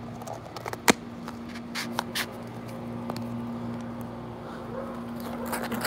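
Close handling of a gold plastic Easter egg: a few sharp clicks and light rubbing, the strongest click about a second in, over a steady low hum.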